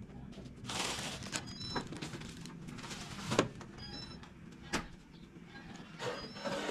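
Kitchen handling sounds: a plastic bag rustling, and several sharp knocks of an aluminium pot and bowl being set on a stone countertop, the loudest a little past the middle.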